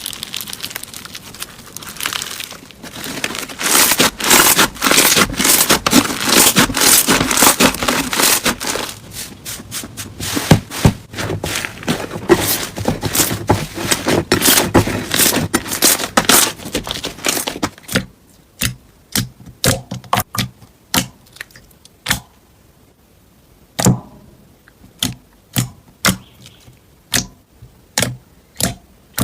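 Slime being handled: dense crackling for most of the first two-thirds, then separate sharp pops and clicks, a little under one a second, near the end.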